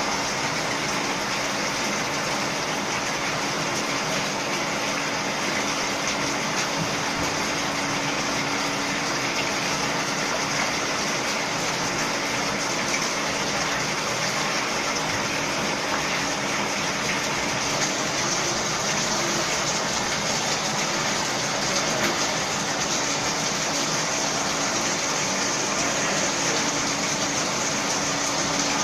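Liquid pouring steadily in many thin streams from the outlet taps of a plate-and-frame filter press into a collecting trough, with a steady low hum from the pump running underneath.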